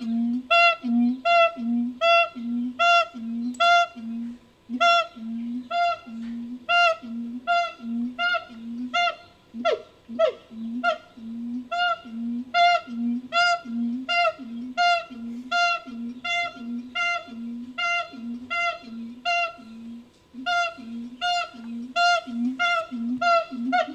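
Siamang calls assembled into a sound effect from siamang and gibbon recordings: a long, even series of short hooting barks, about two a second. About ten seconds in, a couple of sweeping calls break the series, and there is a short pause near the end.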